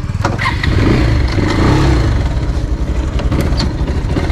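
Motorcycle engine running, its revs rising and falling.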